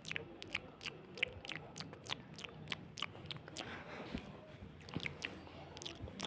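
Faint, irregular clicking or tapping, about four sharp clicks a second.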